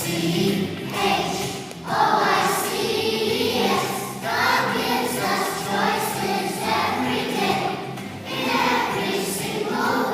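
A group of young children singing together as a choir, in sung phrases with brief breaks between them.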